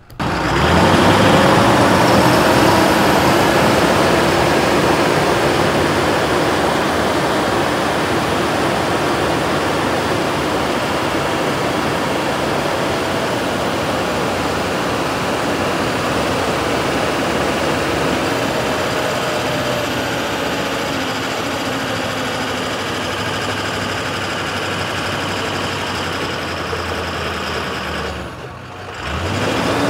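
Medium-duty rollback tow truck's engine running hard under load, with a loud rushing noise and revs that rise and fall now and then, as the stuck truck tries to drive out. It dips briefly near the end.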